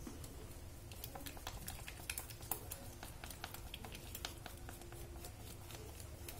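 Chopsticks stirring egg and flour batter in a stainless steel mixing bowl, the sticks tapping and scraping against the bowl in quick, irregular clicks from about a second in.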